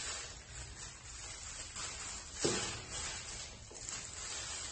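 Faint handling sounds of shredded, marinated purple cabbage being packed by hand into a cylindrical mould, with one short knock about two and a half seconds in, over a steady hiss.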